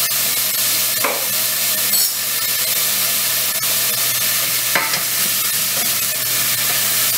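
Diced eggplant sizzling in hot oil in a stainless steel saucepan on an induction hob, a steady hiss, stirred with a wooden spatula that knocks against the pan a few times.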